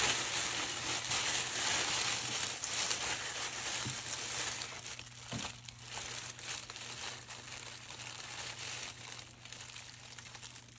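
Plastic oven bag crinkling as it is gathered up and twisted closed around a turkey: dense and fairly loud for the first four seconds or so, then sparser, quieter crinkles that fade out.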